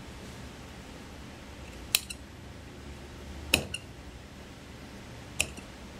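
Large tailor's shears cutting through wool suit fabric around a jacket armhole: three sharp snips of the steel blades closing, about one and a half to two seconds apart, each with a light second click just after.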